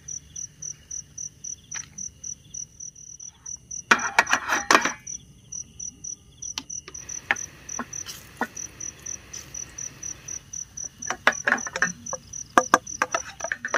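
Crickets chirping in a steady, rapidly pulsed high trill. A clatter of knocks about four seconds in and a scattering of sharp clicks in the second half sound over it.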